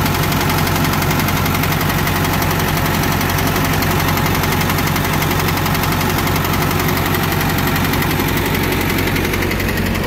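John Deere 450 crawler's diesel engine running steadily at a constant speed, with a fast, even diesel clatter.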